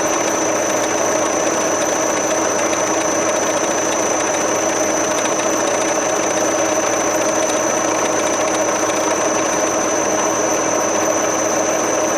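Milling machine running a 50 mm face mill through a face-milling cut: a steady mechanical hum with a constant high whine over it.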